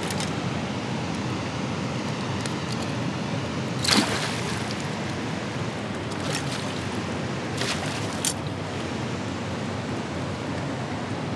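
Spillway water rushing steadily below a dam. A few short, sharp knocks and splashes cut through it, the loudest about four seconds in and three smaller ones a few seconds later.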